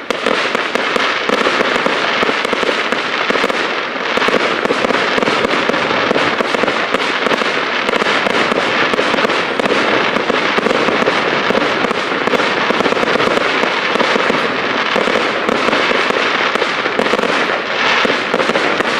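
Fireworks display: many shells bursting together, a dense, continuous crackling and popping of bursts and crackling stars.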